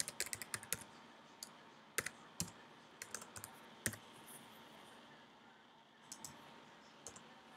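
Faint computer keyboard and mouse clicks. A quick run of key taps comes first, then single clicks every half second or so until about four seconds in, and a few more near the end.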